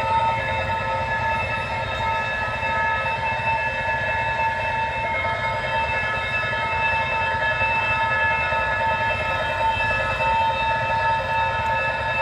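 Railroad crossing bell ringing without pause in a jingle-bell-like chime, over the continuous low rumble of a train going through the crossing.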